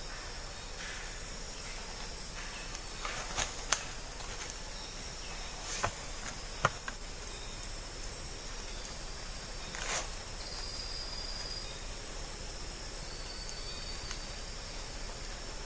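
Steady high-pitched chorus of rainforest insects, with a thinner insect trill coming and going in the second half, and a few scattered clicks or knocks between about 3 and 10 seconds in.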